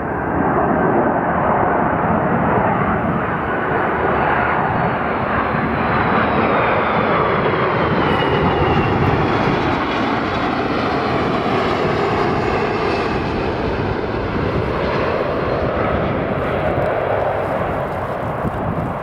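Airbus A330-200 twin turbofan jet on final approach, passing low overhead: a loud, steady jet engine noise with a high whine that falls in pitch as the airliner goes by.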